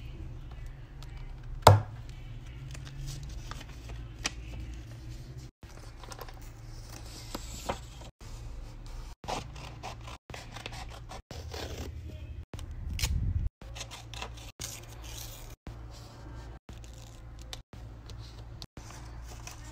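Close-miked paper-crafting sounds in short edited clips: the rings of a small ring binder snap loudly once about two seconds in. After that come paper handling and scraping, small clicks, and scissors snipping paper.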